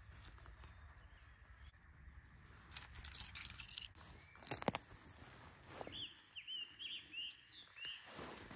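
Small songbirds chirping in a quick run of short rising-and-falling chirps, mostly in the second half. Several short knocks and rustles from gear being handled and set down are the loudest sounds, about three seconds in, again about a second later, and once near the end.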